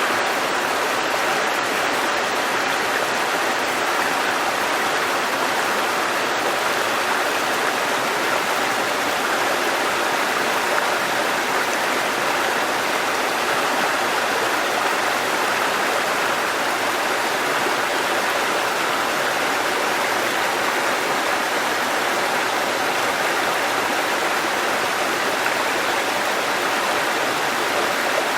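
Running water in a steady, even rush that does not change throughout.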